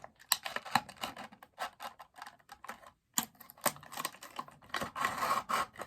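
Cardboard box and packaging being handled and opened: a run of sharp clicks and crinkles, thickening into a denser rustling scrape near the end.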